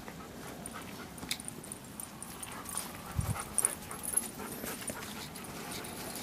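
Dogs, among them a Bernese mountain dog, jostling right up against the microphone, with scattered small knocks and a dull bump about three seconds in.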